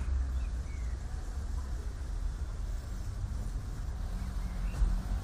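Low, steady rumble of city street traffic.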